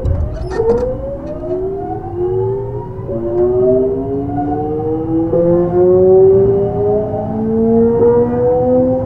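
Early Mitsubishi GTO-VVVF inverter of a Kintetsu 3200 series train whining as the train accelerates. Several tones rise in pitch together and jump to new pitches as the inverter changes mode, about three seconds in and again around five and eight seconds, over the running rumble. A few sharp clicks come in the first second.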